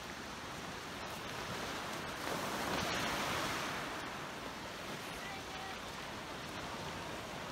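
Small sea waves breaking and washing up a pebble beach, a steady surf noise with one wave swelling louder about three seconds in.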